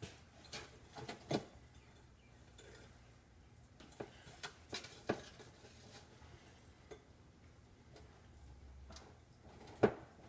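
Scattered light clinks and knocks of small metal tools and parts being handled, with a sharper knock near the end.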